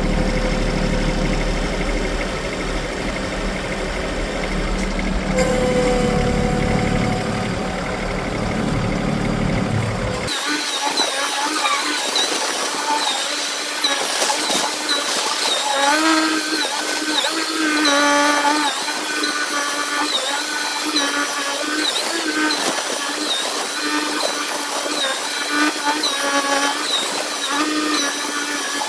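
A motor engine running steadily with a deep rumble. About ten seconds in it cuts abruptly to a thinner, wavering whine that rises and falls repeatedly, with the rumble gone.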